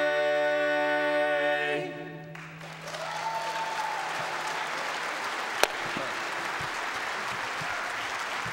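A barbershop quartet holding the final four-part a cappella chord, which cuts off about two seconds in. The audience then breaks into applause, with a sharp click about five and a half seconds in.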